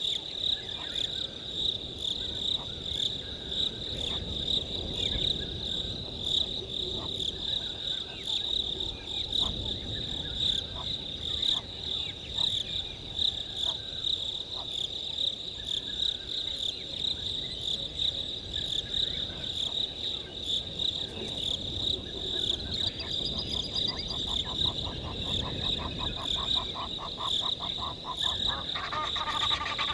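Steady night chorus of crickets, one constant high trill, over a low shifting rumble. Near the end a rapid pulsed call builds and Egyptian geese start honking.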